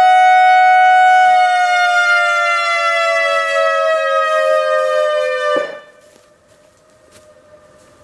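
ACA Alertronic AR-1600 electronic outdoor warning siren sounding a steady tone. After about a second it glides down in pitch for roughly four seconds, then cuts off abruptly near the end, as the signal ends.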